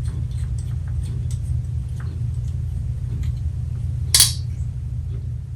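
A steady low hum throughout, with faint small handling clicks and one sharp metallic clink about four seconds in, as small metal parts are handled on a workbench.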